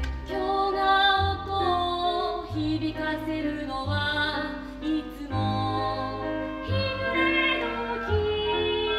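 A woman singing a slow, sustained melody over instrumental accompaniment with a low bass line.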